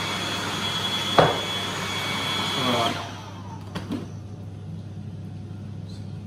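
Food processor running, puréeing hummus with a steady whine, and switched off about three seconds in. A sharp knock comes about a second in, and a couple of light plastic clicks follow the stop as the lid is taken off the bowl.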